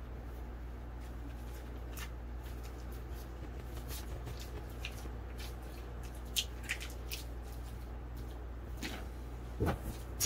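Cat toys and packaging being handled: faint rustles and a few small clicks and taps, with a louder knock near the end, over a steady low room hum.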